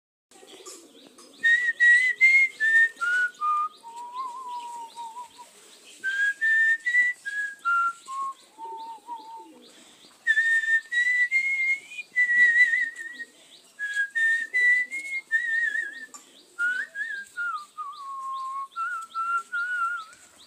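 A person whistling a melody in clear single notes, in several phrases that each start high and step down in pitch, with short pauses between them.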